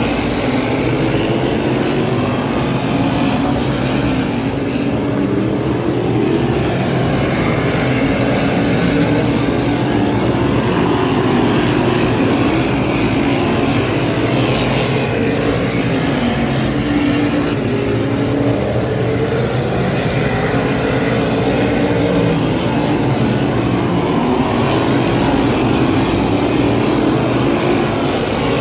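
A field of V8 modified race cars running laps on an oval track: several engines at once, their pitch rising and falling continually as the cars go round.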